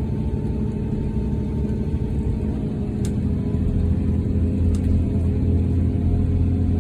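Inside a KiHa 283 series diesel express railcar as it pulls away: a steady low rumble and hum from the diesel engines and running gear, growing louder about three seconds in as the train picks up speed. Two faint clicks sound over it.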